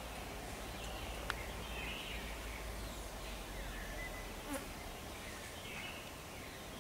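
Faint outdoor ambience with a steady insect buzz and two short sharp clicks, about a second in and past the middle.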